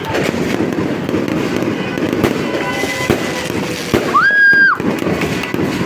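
Firecrackers crackling in a dense, continuous stream of rapid sharp pops. About four seconds in there is a short high-pitched whistle that rises, holds, then falls.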